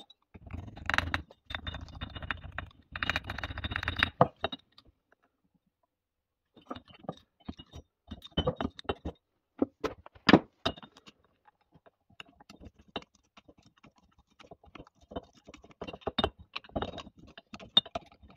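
Steel pick scraping and clicking in the ring grooves of a two-stroke engine's piston, working the piston rings loose. Three bursts of scraping in the first few seconds, then scattered metallic clicks and ticks, one sharp click the loudest about ten seconds in.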